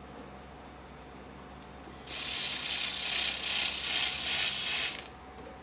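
Handheld laser welder making a weld pass: a steady hiss and sizzle at the weld that starts sharply about two seconds in and stops after about three seconds.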